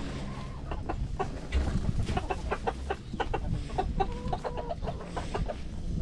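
Chickens clucking: many short clucks in quick succession.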